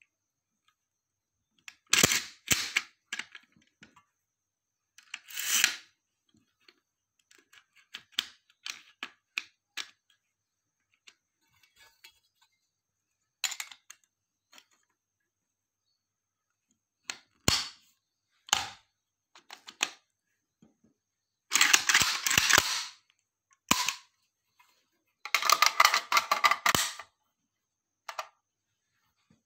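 Metal clicks, clacks and short sliding rattles of a magazine-fed 12-bore repeater shotgun being reassembled by hand, as parts snap into place and the magazine is fitted. The sounds come in separate bursts with quiet between, including two longer rattles late on.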